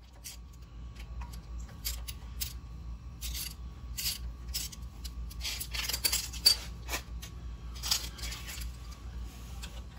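Metal clinking and scraping as a long threaded rod is slid into the front axle tube and worked into place: a run of short, irregular clicks and rasps, the sharpest about six and a half seconds in.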